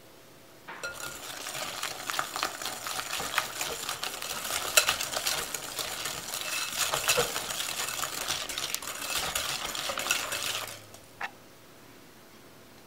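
A wire balloon whisk beating egg into creamed butter batter in a glass bowl, its wires clinking and scraping rapidly against the glass. The whisking stops abruptly near the end, and one short tap follows.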